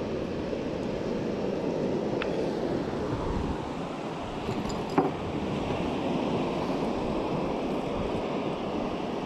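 Steady rush of surf on a beach with wind on the microphone, and a sharp click about five seconds in.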